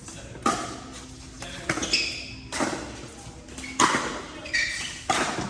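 Pickleball rally: paddles strike a hollow plastic pickleball about six times, roughly once a second, each a sharp pock that echoes in a large hall. Short high squeaks come between some of the hits.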